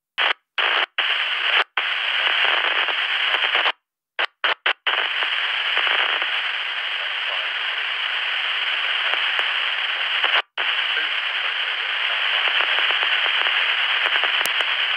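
PMR446 walkie-talkie receiving a weak, distant transmission: loud hiss and crackle of static, which the squelch cuts off in several short drop-outs in the first five seconds and once more about ten seconds in. The signal is breaking up at the edge of its range.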